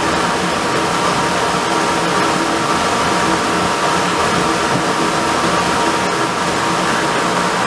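Wood lathe running steadily at speed: a constant whir with a few steady hum tones.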